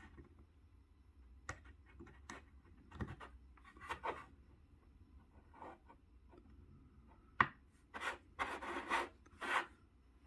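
Fingertips scraping and rubbing on the exposed internals of a Ticwatch C2 smartwatch while working its small flex-cable connectors loose. There are scattered light clicks, one sharper click about seven seconds in, and a run of longer rubbing noises after it.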